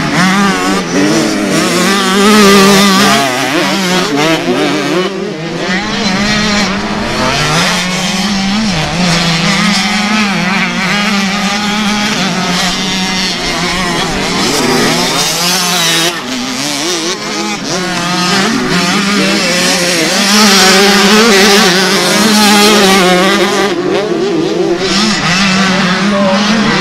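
Small two-stroke engines of youth motocross minibikes racing, revving up and down as the riders accelerate out of turns and back off, with more than one bike running at once.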